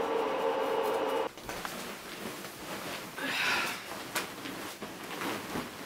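A steady hum that cuts off abruptly about a second in, followed by soft rustling of a duvet and bedding with light knocks as people shift in bed, the loudest swish a little past the middle.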